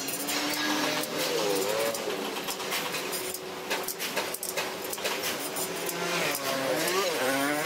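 Motorbike engines passing on the street, their pitch dipping and then rising twice, once about a second in and again near the end, over steady traffic noise. Light clicks and taps sound throughout.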